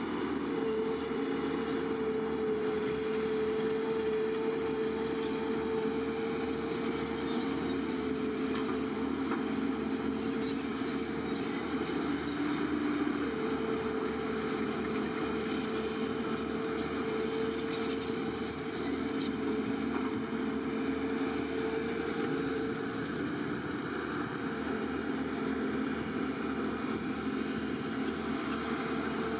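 Heavy bulldozer engine running steadily under working load, with a constant droning tone that drops out briefly about halfway through.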